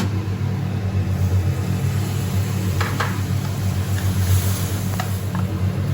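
A steady low hum, with the spiced onion masala and added water sizzling faintly in the pan and a few light clicks of stirring about halfway through and near the end.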